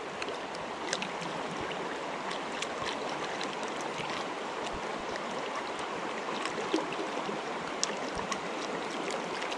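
Creek water running steadily, with a few faint clicks scattered through.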